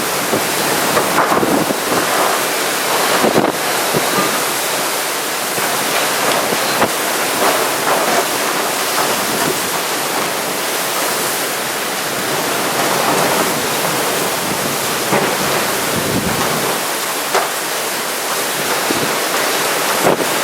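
Typhoon winds and heavy rain, a dense rushing noise that swells and eases with the gusts, with wind buffeting the microphone.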